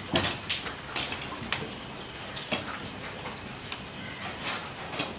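A large knife cutting through a whole fish on a wooden chopping block: about eight sharp knocks and scrapes of the blade, irregularly spaced.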